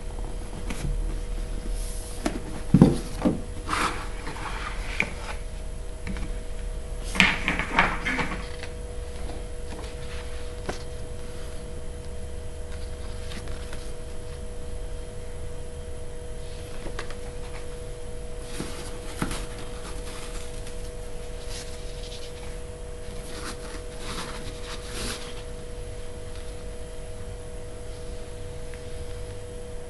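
Small objects being handled: scattered clicks, taps and short rubbing noises, heaviest about 3 seconds in and again around 7 to 8 seconds in, then sparser. A steady faint electrical hum runs underneath.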